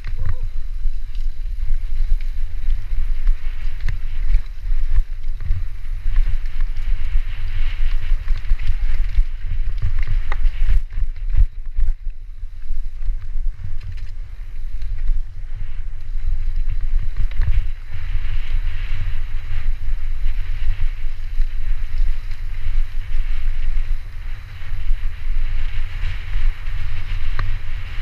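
Mountain bike descending a dirt singletrack at speed: wind buffeting the microphone over a constant rumble of tyres and frame on the trail, with occasional sharp knocks as the bike hits rocks and roots.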